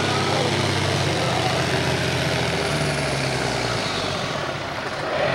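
John Deere farm stock tractor's diesel engine at full throttle, pulling a weight-transfer sled and blowing black smoke. The engine note shifts about three seconds in, and the sound eases off near the end as the pull slows.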